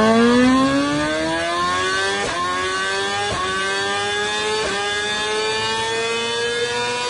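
2020 BMW S1000RR's inline-four engine, through a Spark exhaust, revving up on a held throttle: one long, steady climb in pitch from mid revs towards the top of the rev range.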